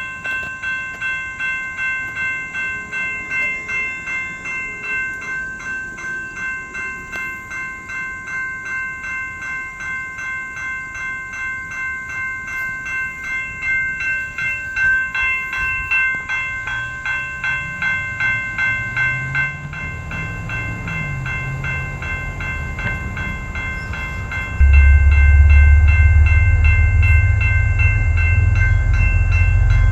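Railroad crossing warning bell ringing in steady strikes about twice a second, as the commuter rail train's low rumble builds. About 25 seconds in, the train reaches the crossing and its rumble suddenly becomes much louder.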